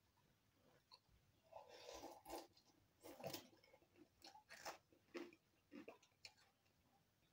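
A person chewing a mouthful of instant cup noodles, close mouth sounds in short, irregular bursts that begin about a second and a half in and die away near the end.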